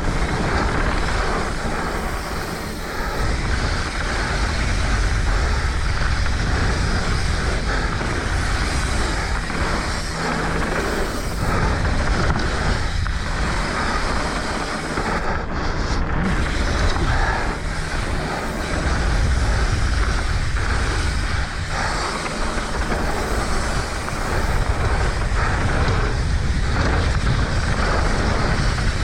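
Mountain bike ridden fast down a dirt trail, heard through a GoPro action camera's microphone: steady wind buffeting and tyre rumble, broken by frequent short rattles and knocks as the bike runs over bumps.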